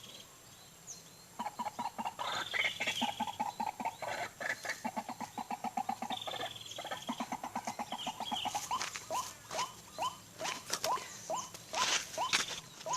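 White-breasted waterhen calls starting about a second and a half in: a fast run of repeated croaking notes, broken briefly about six seconds in, that turns after about eight seconds into separate short rising notes about three a second.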